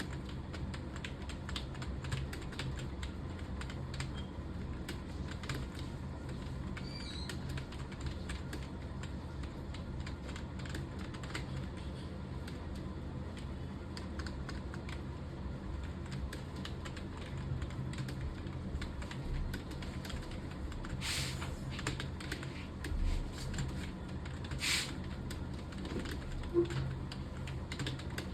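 Continuous typing on a computer keyboard: a fast, uneven run of key clicks over a steady low hum. Two short, louder swishes of noise stand out about three-quarters of the way through.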